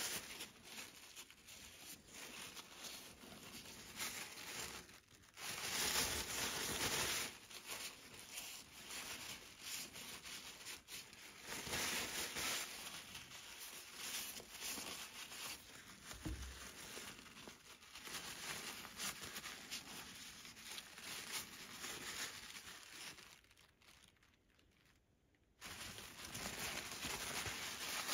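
A wad of paper towel rustling and crinkling as it is rubbed over a bicycle gearbox housing, in uneven bouts of wiping with a short lull a few seconds before the end.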